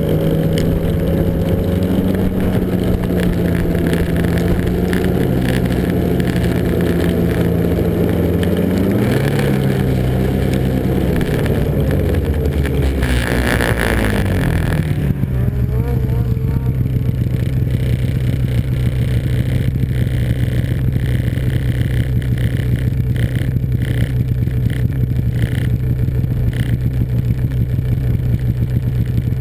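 Snowmobile engine running at steady high revs, then slowing over several seconds, with a brief hiss as it comes down, and settling into steady lower-speed running.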